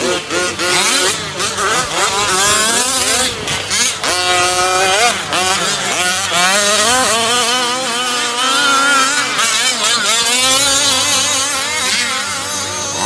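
Several 1/5-scale RC race trucks' small two-stroke gas engines revving at once, overlapping pitches constantly rising and dropping as the trucks accelerate and brake.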